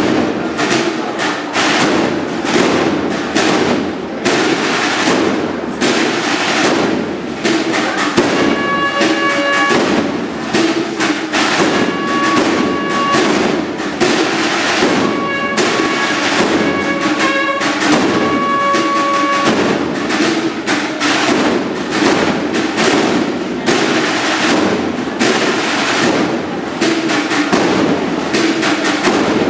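A youth processional band playing a Holy Week march, with dense, rapid snare drumming throughout. Held pitched notes sound over the drums from about 8 to 19 seconds in.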